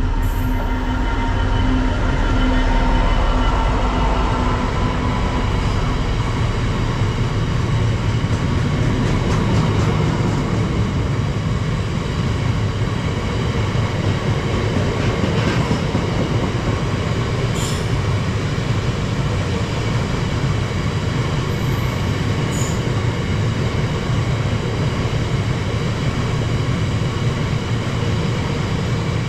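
DB Cargo Class 66 diesel-electric locomotive passing close by, its engine rumble loudest about three seconds in. A long train of box wagons follows, rumbling and clicking steadily over the rail joints, with a few brief high squeals from the wheels.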